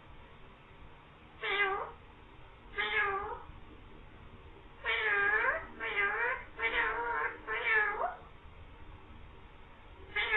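Green pet parrot imitating a cat's meow: about six meow-like calls, two spaced apart, then four in quick succession.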